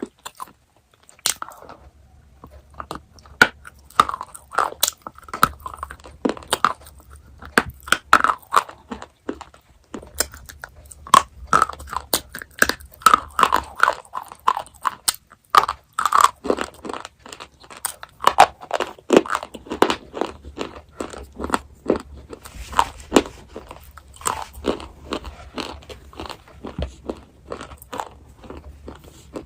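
Close-miked chewing and crunching of chocolate: a continuous run of crisp, irregular crunches and chews with brief pauses.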